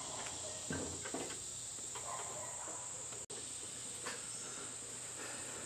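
Faint, steady high-pitched hiss with a few soft clicks and knocks of shotgun parts being handled on a padded bench. The sound drops out briefly about three seconds in.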